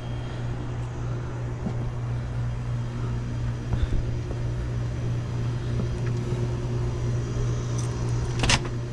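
Outdoor air-conditioning condenser units running with a steady low hum. About eight and a half seconds in comes a short, sharp click-rattle as the glass entrance door's handle and latch are worked.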